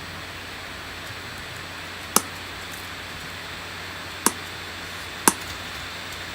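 Steady hiss with three sharp knocks, about two, four and five seconds in.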